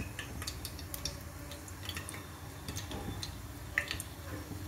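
Whole spices, cardamom and cubeb among them, crackling and popping irregularly in hot oil in an aluminium pressure cooker, over a low steady hum.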